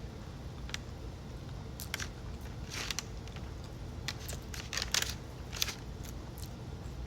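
Close-miked eating: a scattered series of sharp crunches and clicks of biting and chewing sushi, busiest in the middle of the stretch.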